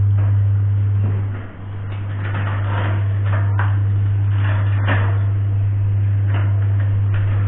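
A steady low hum throughout, with scattered clicks, knocks and rattles as a bicycle is handled and worked on.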